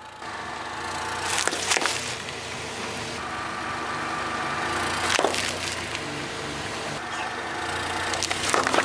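A car engine running slowly while its tyre rolls over and crushes plastic toys and sealed snack and drink packets, giving sharp cracks and pops: a couple a little under two seconds in, one about five seconds in, and a cluster near the end.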